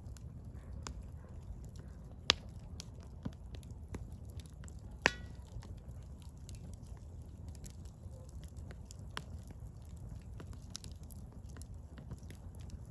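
Firewood burning: a steady low rumble of flames with scattered crackles and small pops, and two sharper pops about two and five seconds in, the second followed by a brief falling whistle.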